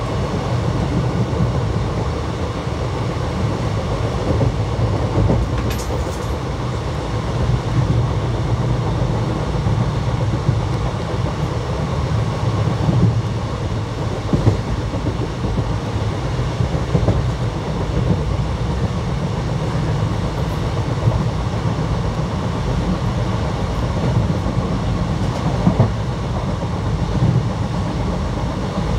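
Indian Railways ICF passenger coach running on the track: a steady, deep rumble of wheels on rail with a light clickety-clack, broken by a few louder knocks.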